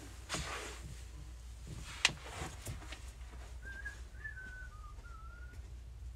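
A single sharp click about two seconds in, then a short soft whistled phrase of a few wavering notes, over a steady low hum.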